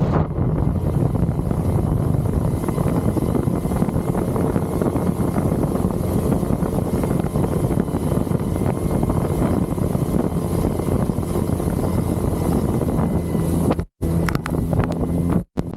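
Outboard motor running steadily as it drives an inflatable boat along, with wind buffeting the microphone. The sound cuts out completely twice, briefly, near the end.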